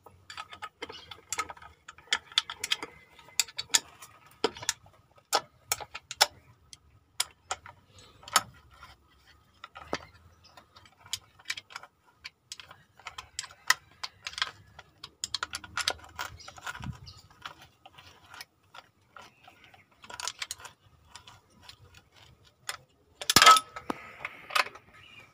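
Ratchet spanner clicking and metal tools clinking against bolts and fittings on a stationary diesel truck engine, in irregular bursts, with one louder metal clank near the end.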